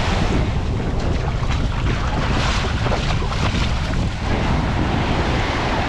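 Wind buffeting the microphone in a steady low rumble, over the wash of surf breaking on a sandy beach, with the surf swelling twice near the middle.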